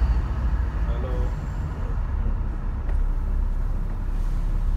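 Steady low engine rumble and road noise of a large vehicle, heard from on board as it moves slowly in city traffic.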